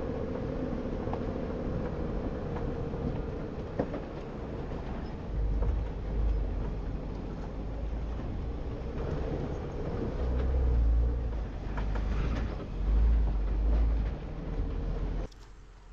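Jeep crawling over rock with its engine running steadily, scattered knocks and rattles from the body and suspension, and several deep rumbles that swell and fade. The sound drops away suddenly near the end.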